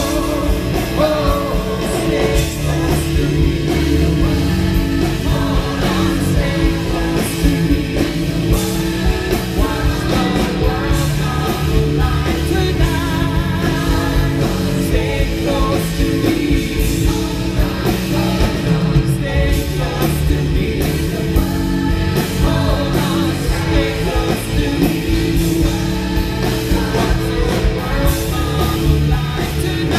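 A male singer performing live with a pop band of guitars, horns and drums, as heard from the audience.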